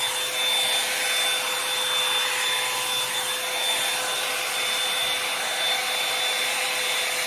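A Revlon One-Step hot-air brush dryer running steadily: a loud rush of blown air with a constant whine in it.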